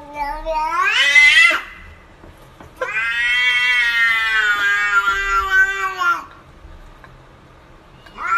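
A cat meowing in long, drawn-out calls: one rising in pitch ends about a second and a half in, then a longer call lasting about three seconds follows, and another starts right at the end.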